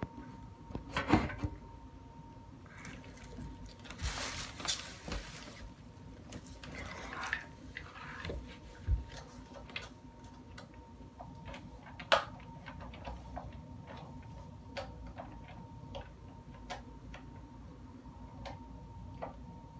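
Hands working on an animated caged skeleton prop: scattered small clicks and knocks, rustling about four seconds in and again near seven seconds, and a sharper knock about twelve seconds in, over a faint steady high tone.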